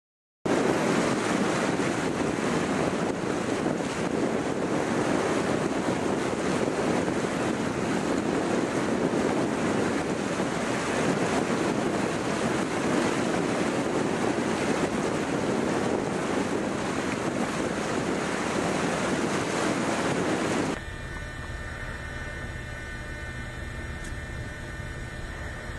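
River floodwater rushing and churning over a road, a loud steady roar of water. About 21 seconds in it cuts to a quieter low rumble of wind on the microphone.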